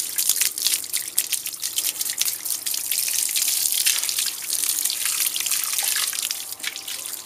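Water from a garden hose spraying and splashing onto wet brick paving and a dog, a steady, busy spatter.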